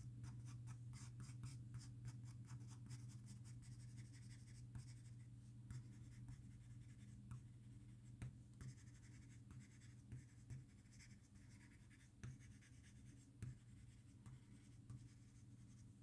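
Soft 6B graphite pencil scratching faintly on paper in many quick, short strokes as fur is sketched, over a faint steady low hum.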